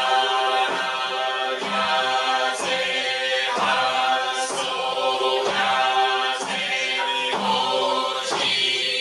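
A group of men and women chanting a Zen liturgy in unison, holding steady pitches and moving one syllable at a time at an even pace of about one per second.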